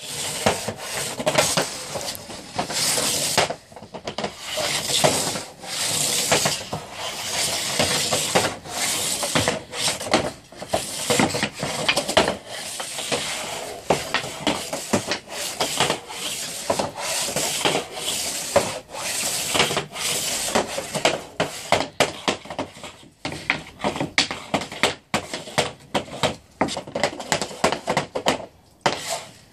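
A hockey stick blade and puck scraping and clicking on plastic floor tiles as a puck is stickhandled back and forth, in rapid, irregular strokes. The strokes become sharper and more separate toward the end.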